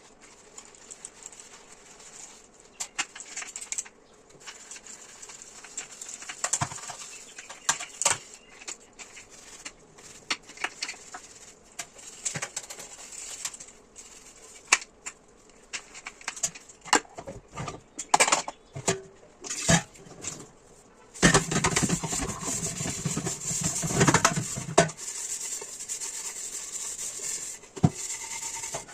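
Dishes being washed by hand: scattered clinks and knocks of plates and utensils, then from about two-thirds of the way in a steady rush that fits a kitchen tap running, with more clatter over it.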